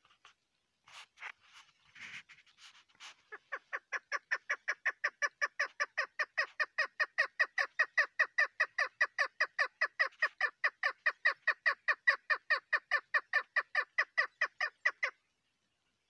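Caged chukar partridge hen calling: a few scattered notes, then from about three seconds in a fast, even run of short chuk calls at about four to five a second. The run grows louder at first, then holds, and stops about a second before the end.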